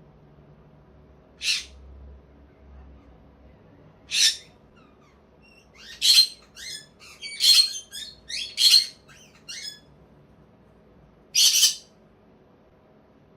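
Green-cheeked conure squeaking in short, sharp calls: two single squeaks a few seconds apart, then a quick run of squeaks, and one more near the end.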